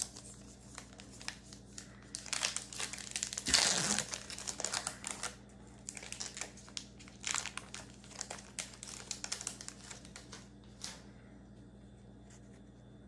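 A trading-card pack's foil wrapper crinkling and tearing as it is ripped open, in two stretches of crackling, loudest a few seconds in.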